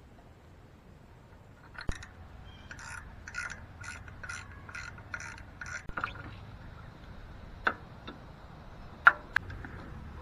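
Hand tool working on bicycle parts: a single sharp click, then a run of about eight quick rasping strokes, roughly two and a half a second, followed by a few sharp metallic clicks near the end.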